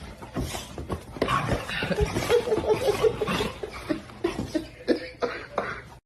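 A person laughing in quick repeated bursts, over scattered knocks and clatter.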